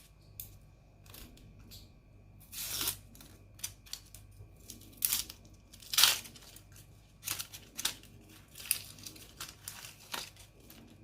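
Dry, papery red-onion skin being torn and peeled off by hand: a series of short, irregular tearing and crinkling rasps.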